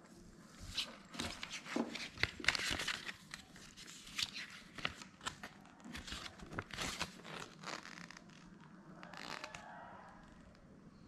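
Crinkling and rustling of paper and plastic packaging being handled, a busy run of irregular crackles and clicks that thins out after about eight seconds.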